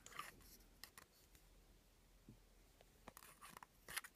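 Faint, scattered light clicks and taps of pen caps and barrels knocking together as they are picked through in a drawer, a few clustered about three seconds in and the loudest one near the end.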